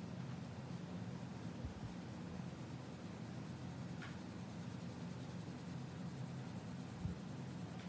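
Coloured pencil scratching and rubbing on paper as an area of a drawing is coloured in, over a low steady hum.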